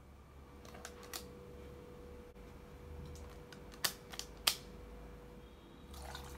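A few sharp metallic clicks and taps from a lever-release ice cream scoop dropping ice cream into a stainless steel mixer jar. The two loudest come about half a second apart past the middle, over a faint steady hum.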